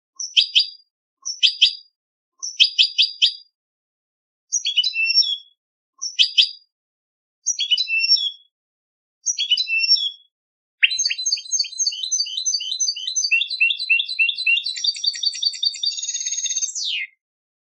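European goldfinch singing contest-style song: seven short twittering phrases with pauses between them, then, about eleven seconds in, one long unbroken run of rapid twitters and trills that ends in a falling note.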